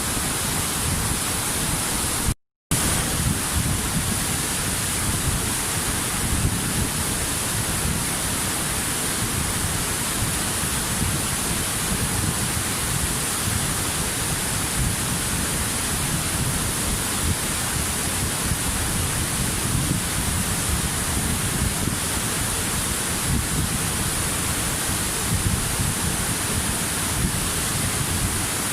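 Waterfall: a steady rush of falling water, with a brief cut to silence about two and a half seconds in.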